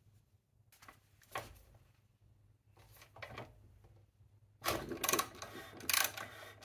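Socket ratchet clicking in quick runs from about four and a half seconds in, as a spark plug is worked out of a scooter engine for a compression test. A few faint knocks come before, as the socket is set on the plug.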